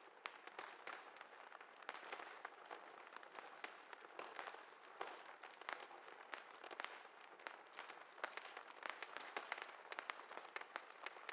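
Fireworks crackling: a dense, continuous run of small sharp pops and cracks, several a second, with no deep booms.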